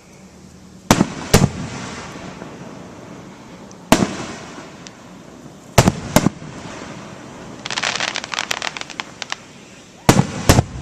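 Aerial fireworks bursting overhead: sharp booms, mostly in pairs, each trailing off in a rumble. A spell of rapid crackling comes about eight seconds in.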